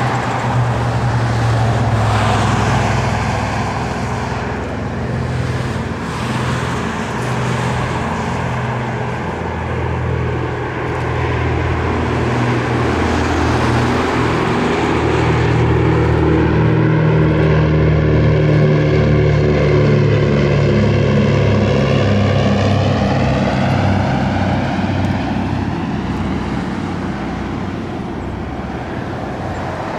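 A propeller aircraft's engine drones as the plane flies past. Its sound swells to its loudest about two-thirds of the way through and swirls as the plane passes, then eases off.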